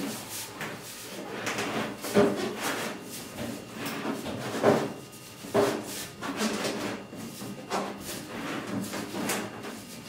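Sheet-metal stove pipe sections scraping and clunking as they are twisted and pushed together by hand, in irregular bursts with a slight metallic ring. Two louder knocks come about two seconds and about four and a half seconds in.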